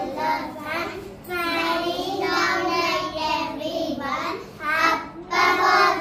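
Young children singing together in high voices.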